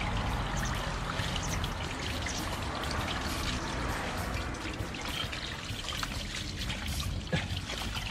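Water from a hose pouring over a polished aluminium truck wheel and trickling off onto wet pavement. Scattered small clicks come through it as a gloved hand rubs the wheel.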